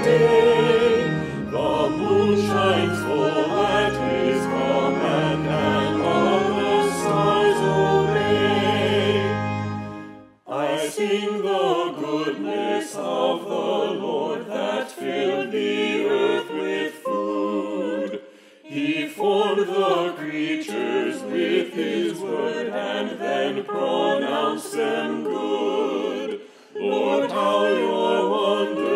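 Choir singing. For the first ten seconds it is over sustained low accompaniment. After a short break the voices continue without the low accompaniment, pausing briefly between phrases.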